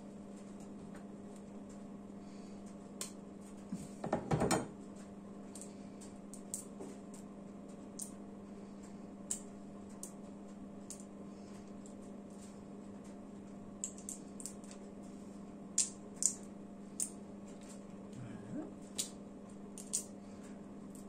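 Lychees being peeled by hand, the brittle shells cracking and snapping in scattered small clicks, with a louder knock about four seconds in. A steady low hum runs underneath.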